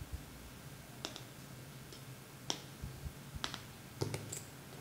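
About five sharp light clicks, spaced irregularly: small hard contacts against a smartphone's glass screen while it is scratched with scissors and wiped.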